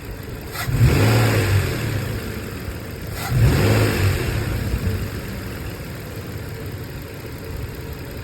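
Nissan Frontier's engine idling and revved twice, about two and a half seconds apart, each rev settling back to idle. It has a freshly replaced fan clutch, and the loud fan roar of the failed clutch is gone.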